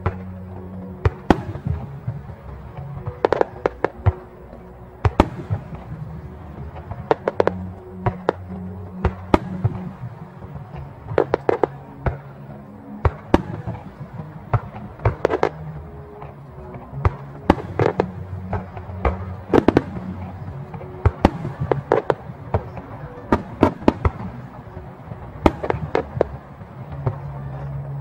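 Aerial firework shells bursting in a rapid, irregular run of sharp bangs, sometimes several in quick succession, over music with a low, steady bass line.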